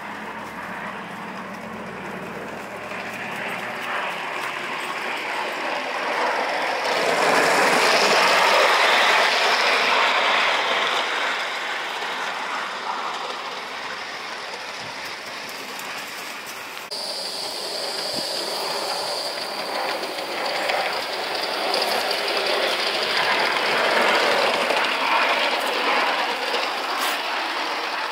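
Live-steam gauge 1 model of a BR Class 7 Britannia locomotive running on garden track, its sound swelling twice as it passes close by. A sudden change in the sound partway through.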